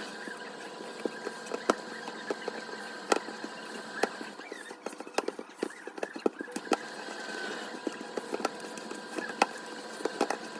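Irregular light clicks, taps and clinks of objects being handled, several a second at uneven spacing, over a faint steady high hum.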